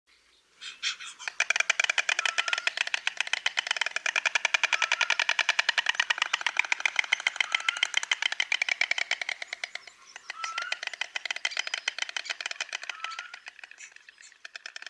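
White stork bill-clattering: a long run of rapid, even wooden clacks that starts with a few separate clicks, eases off about ten seconds in, then picks up again more weakly.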